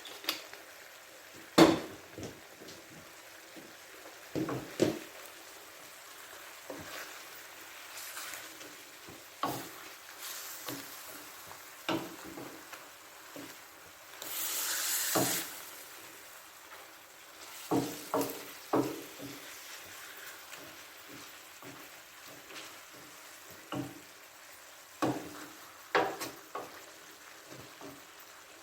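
Chicken and vegetables being stirred in a frying pan: a utensil scrapes and knocks against the pan at irregular intervals over a low sizzle. About halfway through there is a louder hiss lasting about a second.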